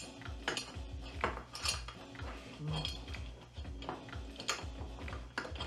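Small metal pedal-mount parts (washers and a bushing) clicking and clinking against each other and the pedal bracket of an electric unicycle as they are fitted by hand: about half a dozen separate sharp clicks, over a low steady hum.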